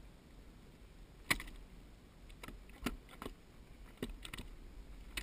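Irregular light clicks and knocks on a plastic kayak, about eight of them over faint hiss, the sharpest a little over a second in.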